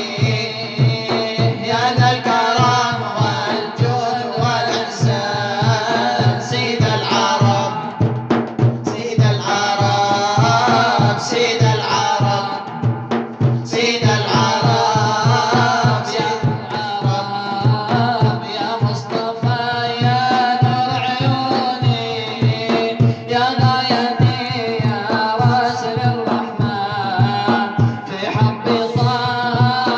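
Arabic nasheed: male voices singing a melody over a steady, fast hand-drum beat.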